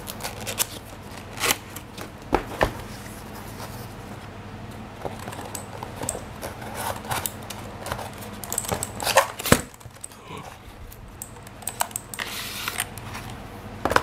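Handling of a keyboard's cardboard box and packaging while it is opened: scattered clicks and knocks, with a short stretch of cardboard rustling and sliding near the end.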